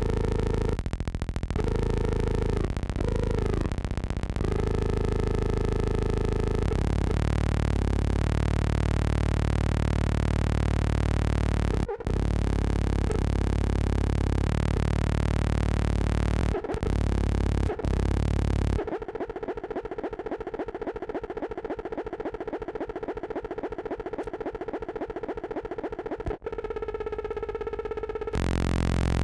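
Electronic synthesizer music: dense, steady droning tones with a deep low end, cut off abruptly for a moment several times. About two-thirds of the way in it thins out and drops in level, then swells back near the end.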